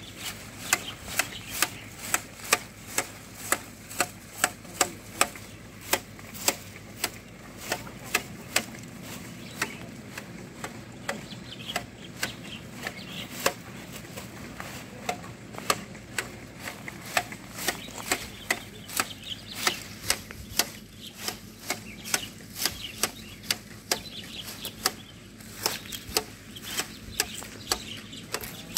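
Tea-plucking shears with an attached collecting box clipping the tips of tea bushes: sharp snips in a steady rhythm, about two a second.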